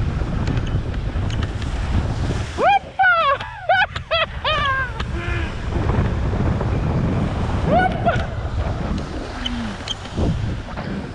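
Wind buffeting the microphone of a camera worn by a skier gliding down a groomed piste, a steady low rumble. Loud, high-pitched voice calls ring out several times in quick succession about three seconds in, and once more around eight seconds.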